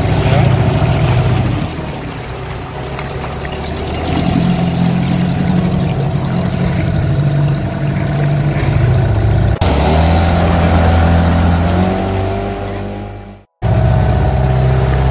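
Small dinghy's outboard motor running underway, its pitch rising and falling as the throttle changes. The sound drops out for a moment near the end.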